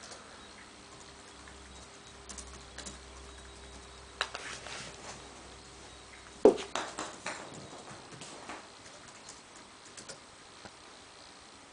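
Small plastic toy cap clattering on a tiled floor: a few light taps, then a sharp knock about halfway through, followed by a run of lighter clicks that fade out as it bounces and skitters away.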